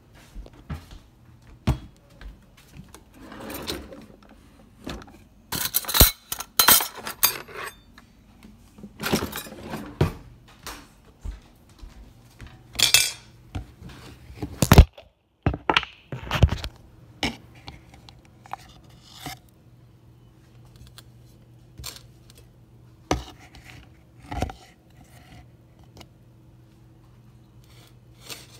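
Kitchen handling sounds: a plate and utensils clinking and clattering on a counter, with scattered knocks and short rustles, over a faint low steady hum.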